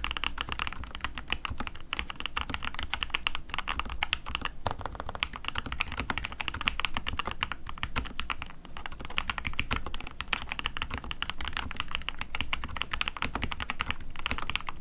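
Fast, continuous touch-typing on an Ikki68 custom mechanical keyboard with lubed, tape-modded Gateron Ink Black linear switches: a dense run of thocky keystrokes.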